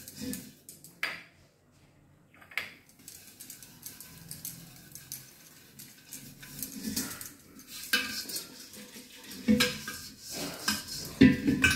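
A copper pot being scrubbed by hand and turned on a stone counter: wet rubbing with irregular metallic clinks and knocks, the loudest near the end.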